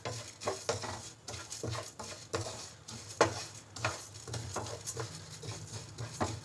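Wooden spatula stirring roasting whole coriander, fennel and cumin seeds in a nonstick wok: quick, repeated scraping strokes, about three a second, with the seeds rattling against the pan. One sharper knock comes about three seconds in.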